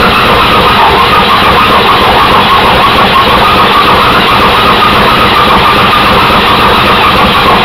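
Junkyard Chevrolet Corvair air-cooled flat-six engine running steadily, with a steady high whine over the engine noise.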